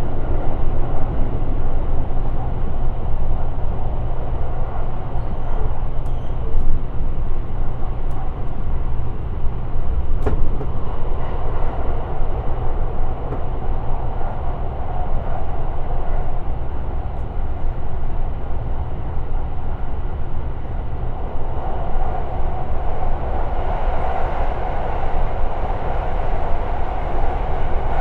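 Shirasagi limited express electric train running at speed: a steady rumble of wheels on rail with a few faint clicks, the running noise swelling a little in the latter part.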